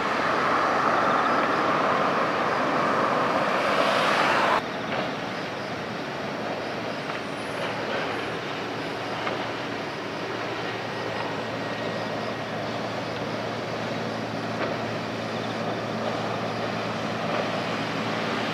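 Large container ship passing close, a steady engine rumble and hum over the rush of its bow wave. About four and a half seconds in it cuts off abruptly to a quieter, steady low engine drone with water and wind.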